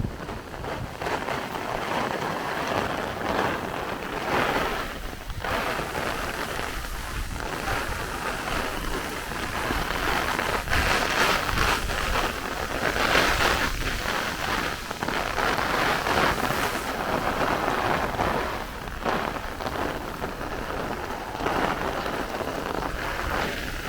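Heavy squall-line downpour falling steadily, swelling and easing as strong wind gusts drive it, with wind rumbling low on the microphone.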